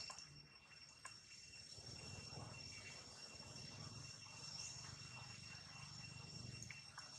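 Faint outdoor ambience: an insect's steady, high-pitched trill, with a soft low rumble underneath through the middle and a couple of faint clicks.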